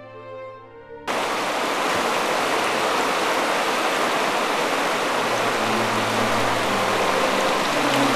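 Music cuts off about a second in, replaced abruptly by the loud, steady rush of whitewater rapids; faint music comes back in under the water noise in the second half.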